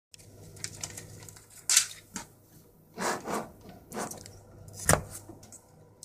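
Scattered clicks, knocks and rustles of something being handled, over a steady low hum; the sharpest knocks fall a little under 2 seconds in and near the end.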